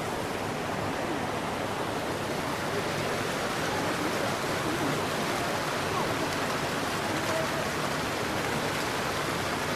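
Hot spring water rushing down wooden troughs and falling into a pool in a steady, unbroken rush.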